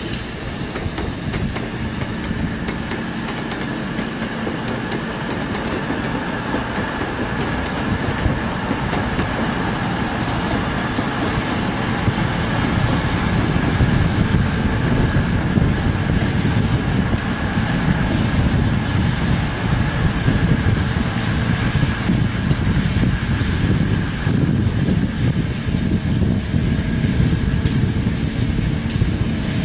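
A train moving along the track, its rumble and rail noise growing louder over the first half and then holding steady.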